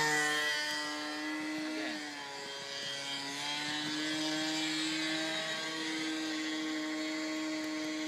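Seagull 40 radio-controlled model airplane's engine and propeller droning steadily as it flies overhead. The sound is loudest at the start, and its pitch dips a little and then rises again as the plane passes and turns.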